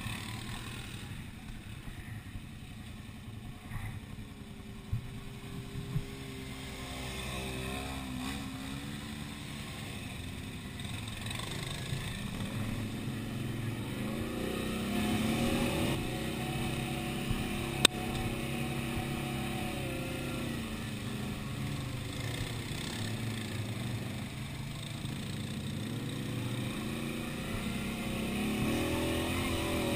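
Quad bike engine running, its pitch rising and falling repeatedly with the throttle over a rough dirt track. A single sharp click about 18 seconds in.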